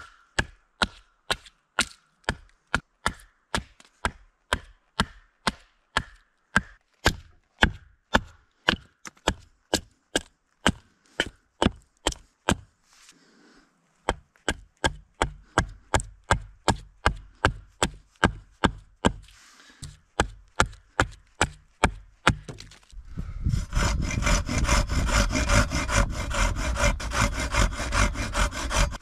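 Ax chopping wood in steady strikes, about two or three a second, with a short pause partway through. Near the end a hand saw starts cutting wood with a continuous steady sawing.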